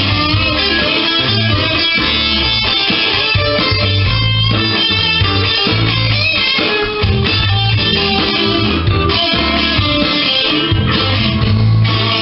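Gibson single-cutaway electric guitar, amplified, played in an improvised jam: a continuous run of picked notes and riffs over steady low notes.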